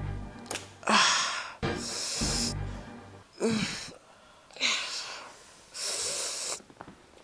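A man breathing hard in about five ragged, hissing gasps, some with short moaning sounds, as if in pain, over quiet background music.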